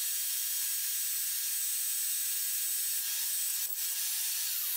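Wooden tailstock block sliding along a wooden lathe base: a steady, even rubbing hiss, with a light knock a little before the end.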